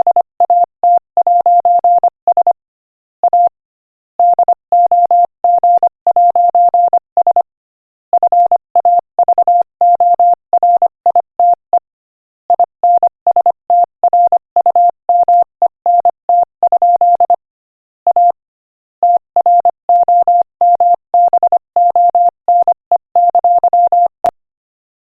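Morse code sent at 25 words per minute as a single steady beep keyed on and off: quick dots and dashes in letter groups, with longer pauses between words. It stops near the end.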